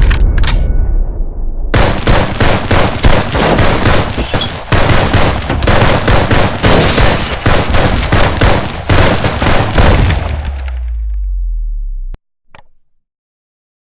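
Machine gun firing long, rapid bursts of fully automatic fire, starting about two seconds in over the fading rumble of a blast. A deep rumble dies away after the shooting and cuts off abruptly near the end.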